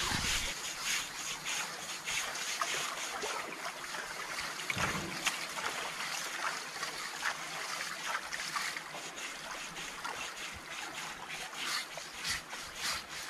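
Water splashing and trickling in a shallow pool as men scrub a bathing elephant, a steady run of quick, irregular splashes. A single low thud comes about five seconds in.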